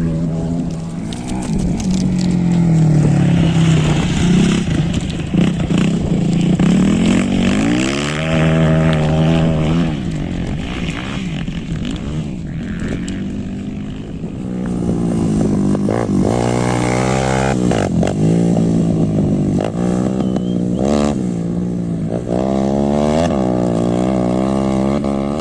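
Off-road vehicle engine revving hard, its pitch rising and falling over and over, with quick throttle blips about once a second in the second half.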